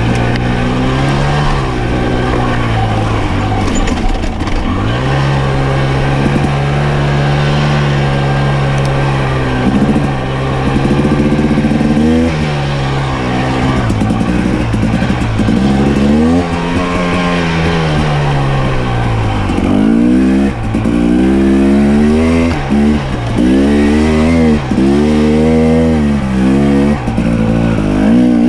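Dirt bike engine under way on a rough trail, its pitch holding for a few seconds at a time and then dropping and climbing again with throttle and gear changes. From about two-thirds of the way in, the throttle is blipped on and off about once a second, so the engine note rises and falls repeatedly.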